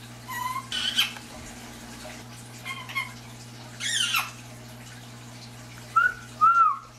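Indian ringneck parakeet making short whining calls in the manner of a puppy whimpering, in several separate bursts. About four seconds in comes one louder call that falls steeply in pitch, and near the end two short whines that rise and fall.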